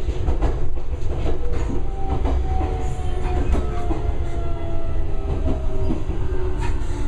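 Inside a JR 383-series limited express car rolling at low speed: a steady low rumble, with the wheels clicking over rail joints and points and a faint whine that falls slowly in pitch as the train slows to arrive.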